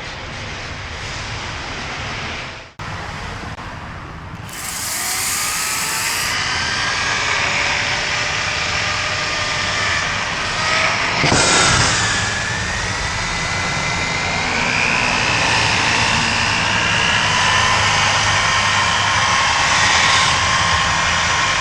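Pressure washer spraying down a dirt-bike frame: a steady hissing rush with whining tones that slide up and down. It breaks off briefly about three seconds in and peaks loudest near the middle.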